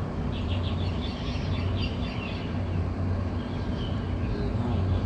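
Birds chirping in short repeated notes over a steady low outdoor rumble.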